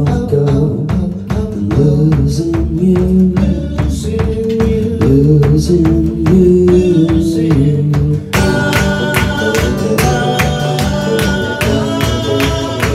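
Live band playing: a strummed acoustic guitar over electric bass and drums, keeping a steady beat. About eight seconds in, the sound turns brighter, with more high held notes.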